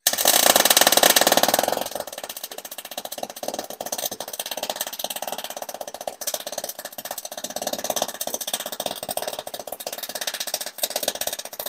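Electric arc welding on the tractor's steel frame: a steady sputtering crackle of the arc, louder for the first two seconds.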